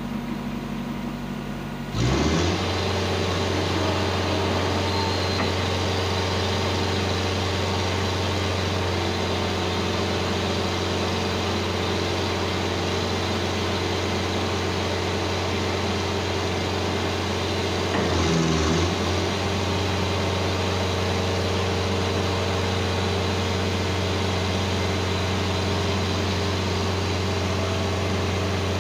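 Engine and hydraulics of a container side loader running: a steady engine hum that speeds up and gets louder about two seconds in, as the hydraulic lifting arm starts working, then holds steady, with a short surge around eighteen seconds.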